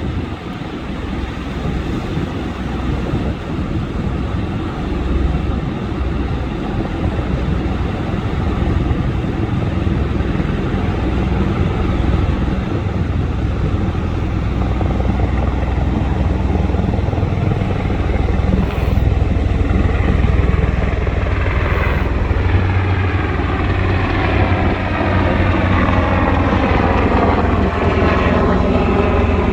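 Black Hawk helicopter rotor and engine noise, a steady low rumble that grows louder as it approaches, with a sweeping, phasing tone over the last several seconds as it comes closer.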